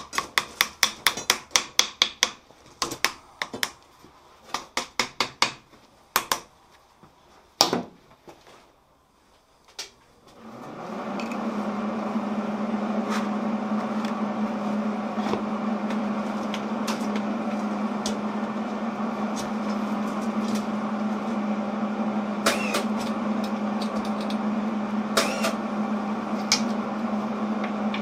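Rapid light metal-on-metal taps on a steel grader-blade plate sitting on an anvil, then a few single knocks. About ten seconds in, a steady machine hum with a low buzz starts and carries on, broken by a few sharp clicks.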